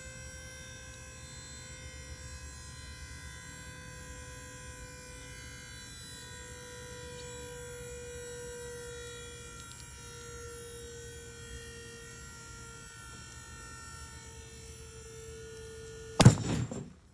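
Hydraulic pump humming steadily while the bolt-testing ram slowly loads a sideways-pulled 3/8-inch glue-in bolt. About 16 seconds in, a sudden loud bang as the bolt breaks out of the concrete at about 34 kN.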